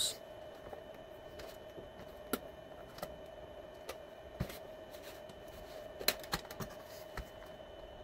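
Scattered light clicks and taps of a DVD drive's thin sheet-metal cover being worked loose and pried off by hand, over a faint steady hum.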